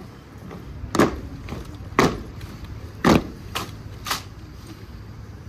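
A drill team's boots stamping in unison on stone paving, three loud stamps about a second apart as the ranks march, then two lighter, sharper knocks as they come to a halt.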